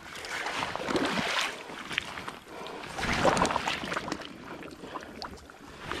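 Person in chest waders wading at the edge of a shallow creek: water sloshing and splashing around the legs in irregular surges, loudest about three seconds in, with light scuffing and rustling from the bank.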